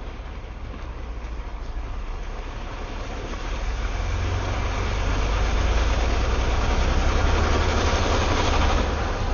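1996 GMC Sonoma pickup driving off-road, its engine and tyre noise steady and growing louder over the first few seconds, then easing a little near the end.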